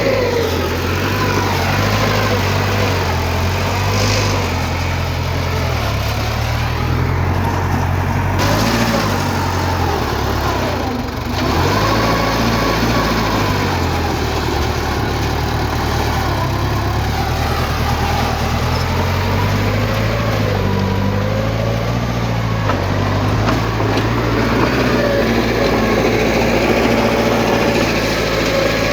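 Diesel engine of heavy earthmoving machinery running continuously, its engine speed rising and falling as the machine works.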